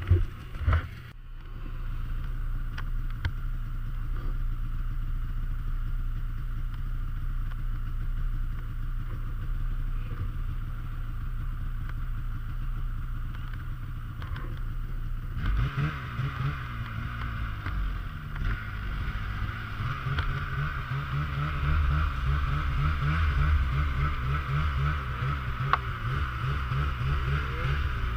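Snowmobile engine running under way, with a few knocks and clatter in the first second or so. About halfway through it gets louder and its pitch rises and falls with the throttle.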